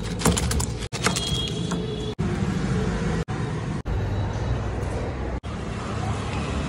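Steady low street noise, a rumble of traffic, cut by short gaps about five times.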